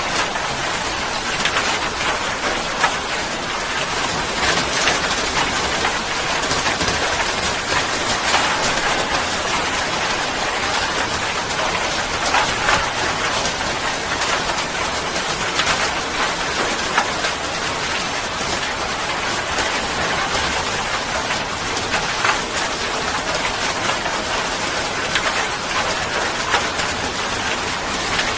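Steady heavy rain falling on a surface: a continuous dense hiss scattered with the patter of individual drops.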